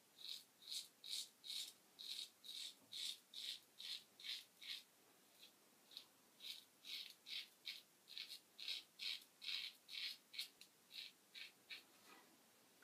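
Faint scratchy strokes of a Merkur Slant safety razor with a carbon steel blade cutting through lathered stubble. The strokes are short and quick, about two or three a second, with a brief pause near the middle.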